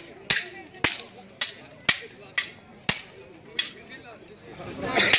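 Gatka sparring: a stick or chain weapon cracking against a round dhal shield in a quick, steady run of sharp strikes, about two a second. A louder, rougher clash comes near the end.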